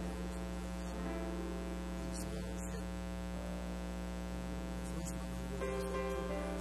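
A steady electrical mains hum under quiet instrumental background music of held notes that change a couple of times.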